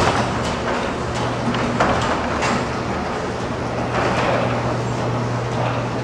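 LiftMaster Professional chain-drive commercial garage door operator switched on at the wall button, starting at once and running steadily with a low hum as it raises a large steel sectional door along its tracks.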